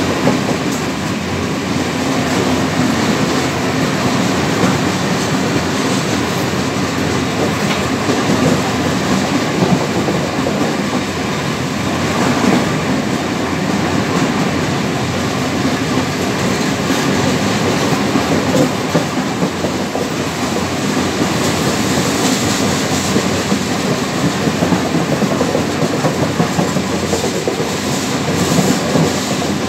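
Loaded iron-ore gondola cars of a long freight train rolling past at close range: a steady rumble and clatter of steel wheels on the rails.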